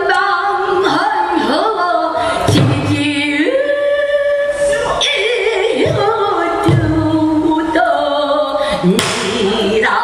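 Female pansori singer singing in full voice, long held notes bending and stepping in pitch, with a few strokes of a buk barrel drum beneath.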